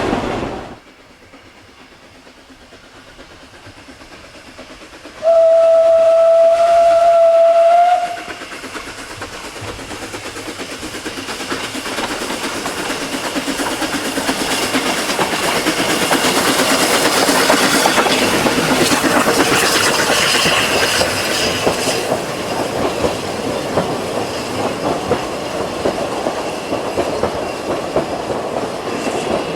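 Steam train sound: a single long steady whistle blast of about three seconds, then the train running with a fast rhythmic clatter that grows louder, peaks and eases off a little.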